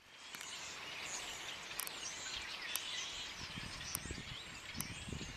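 Outdoor ambience of several birds chirping and calling over one another, with a few faint sharp ticks about once a second.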